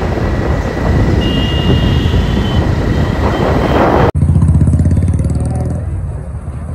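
Riding on a motorcycle: wind buffeting the microphone over the motorcycle's engine and road noise. About four seconds in the sound cuts suddenly to a lower, pulsing engine rumble of street traffic.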